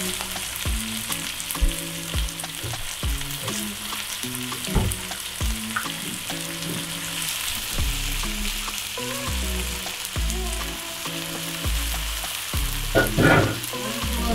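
Chunks of raw beef sizzling as they fry in hot oil in a wok, with short knocks as more pieces are tipped in from a bowl and moved about.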